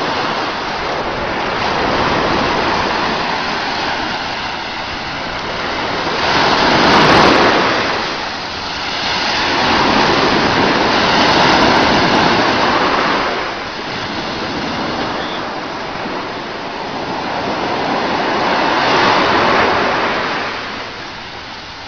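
Sea surf breaking and washing in, a rushing water noise that swells and eases every few seconds, loudest about seven seconds in.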